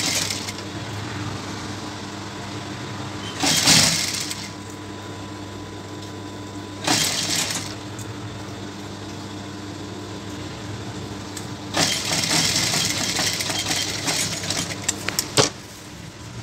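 JACK industrial lockstitch sewing machine: its motor hums steadily, with short bursts of stitching a little after three seconds and near seven seconds, then a longer run from about twelve to fifteen seconds ending in a few sharp clicks.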